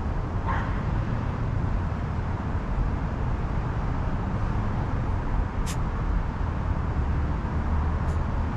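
A dog gives one short yip about half a second in, over a steady low background rumble. Two brief sharp clicks follow later.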